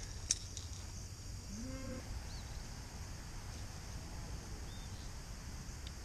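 Steady high chirring of crickets in the grass, over a low rumble, with a short rising call about a second and a half in and a couple of faint bird chirps.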